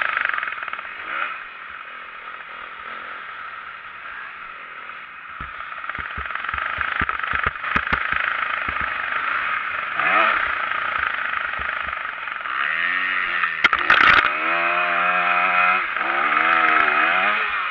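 Motocross bike engine heard from a camera mounted on the bike. It is quieter for a few seconds, then the revs rise and fall again and again as the rider throttles through the track. A run of sharp knocks comes a few seconds in, and a loud crack about fourteen seconds in.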